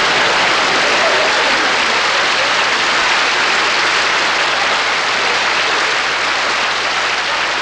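Audience applause: a steady, loud patter of many hands clapping, easing slightly near the end.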